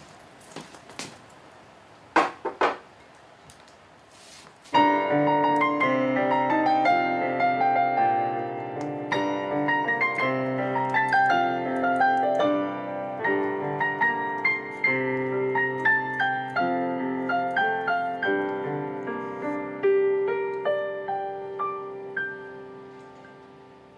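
A few light knocks and clicks, then piano music starts about five seconds in: a melody over chords that goes on and fades away near the end.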